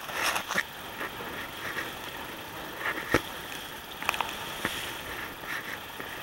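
Rough water rushing and splashing along the hull of a small sailboat under way in choppy water, with a few sharp slaps or knocks, the loudest about three seconds in.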